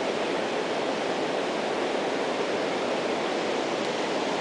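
Waterfall's water pouring steadily, an even rushing noise.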